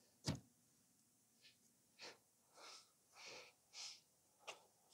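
Near silence, broken by one sharp click just after the start, then a few faint, short rustles and a small tick near the end.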